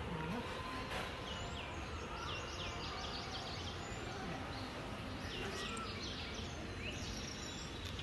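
Outdoor background noise with birds chirping faintly: a few clusters of short, quick, falling chirps over a steady low hum.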